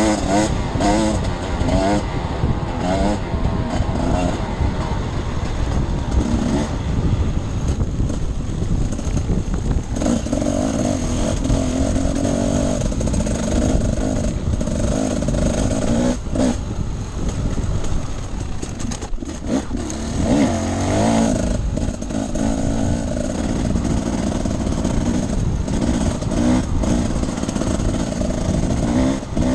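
Off-road enduro motorcycle engine running hard, its revs rising and falling continuously as it is ridden, with a few short knocks.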